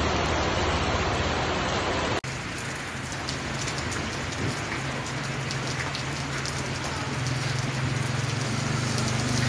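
Heavy rain pouring and splashing off the edge of a shop awning, then, after a sudden cut about two seconds in, lighter rain pattering on a wet street with fine drop ticks over a low steady hum that grows louder near the end.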